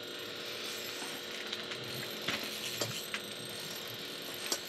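A spinning reel is being cranked steadily, its gears whirring, as a heavy hooked lake trout is reeled up. A few sharp clicks come in the second half.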